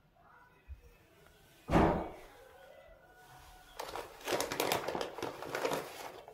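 A single dull thump, the loudest sound, a little under two seconds in, then a couple of seconds of thin plastic packaging crinkling and rustling as a hand rummages in the bag.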